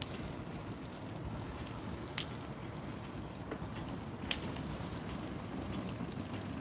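Bicycle rolling over asphalt: a steady low rumble of tyres on the pavement, with two faint clicks about two and four seconds in.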